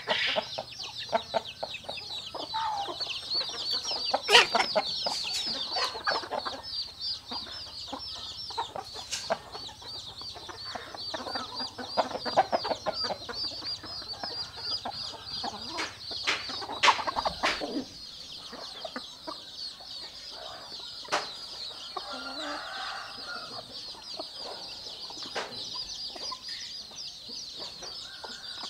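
Hens clucking while chicks peep continuously in a high, rapid chorus, with occasional sharp clicks.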